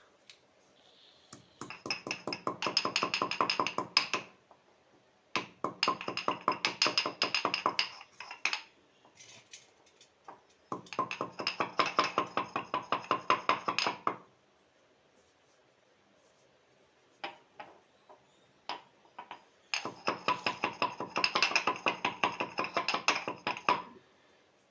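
Black peppercorns and cumin seeds being pounded with a pestle: four runs of rapid, ringing strokes a few seconds each, with a few single knocks between the last two.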